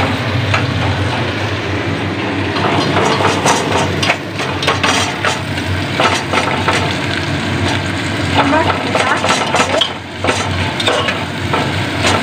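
Sliced onions frying and sizzling in hot mustard oil in a pressure cooker pot, stirred with a metal spatula that scrapes and clicks against the pot's sides.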